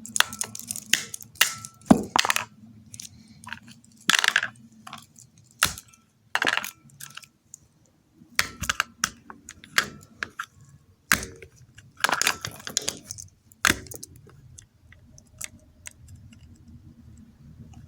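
Small hard objects being handled: a string of irregular clicks, clacks and light clinks, some of them sharp knocks.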